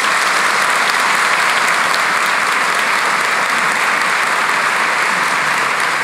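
A large audience applauding steadily at the close of a speech, a dense, even clatter of many hands clapping.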